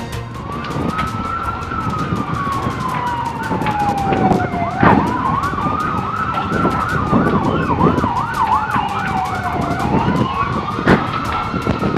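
Emergency vehicle sirens: one slow wail rising and falling over about five seconds at a time, joined from about five seconds in for several seconds by a second siren sweeping rapidly up and down in a fast yelp. Frequent short clicks and knocks run underneath.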